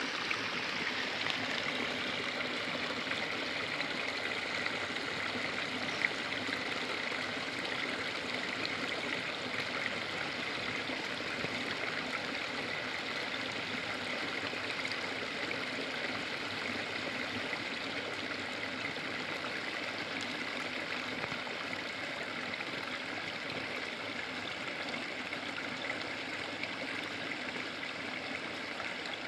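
Small brook fed by a groundwater resurgence: water running steadily and splashing over stones and a small mossy drop.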